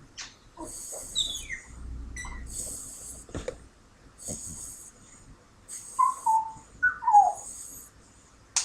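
A sleeping pet snoring: a soft, hissy wheeze that comes back roughly every one and a half seconds. About six seconds in there are a few short, squeaky whistles that fall in pitch, the loudest sounds here.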